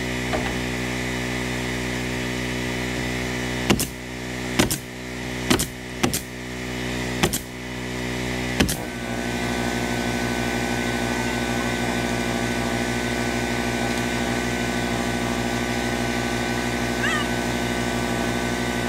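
Pneumatic nail gun fired six times in about five seconds, driving siding nails, over the steady hum of a running air compressor. After the last shot only the compressor hum goes on, with a faint steady whine.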